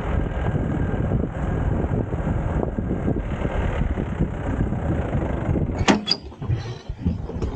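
Open safari jeep driving on a dirt track: engine running and tyres rolling over gravel in a steady rumble. About six seconds in there is a sharp click and the rumble thins out as the jeep slows.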